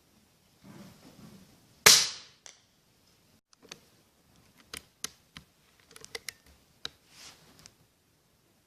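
A single shot from a Kalibrgun Cricket 5.5 mm PCP air rifle about two seconds in, a sharp crack with a short fading tail. A scatter of light clicks follows over the next few seconds.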